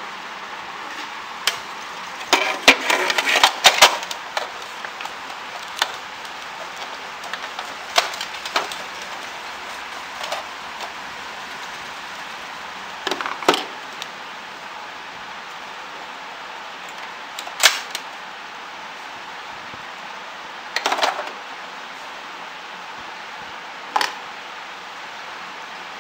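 Plastic parts of an Epson ink-tank printer clicking and knocking as they are handled and fitted: a flurry of clatter a few seconds in, then single knocks every few seconds, over a steady hiss.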